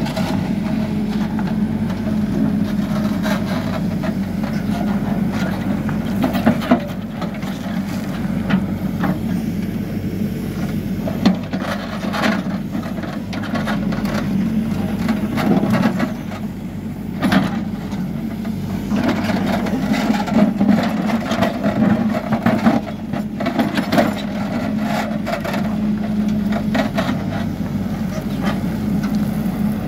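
Hidromek 102S backhoe loader's diesel engine running steadily under hydraulic load while the backhoe digs, with scattered knocks and scrapes of the bucket working through stony soil.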